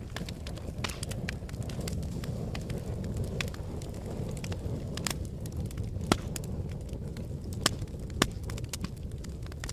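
Wood fire crackling: irregular sharp pops and snaps over a steady low rumble, a few louder pops past the middle.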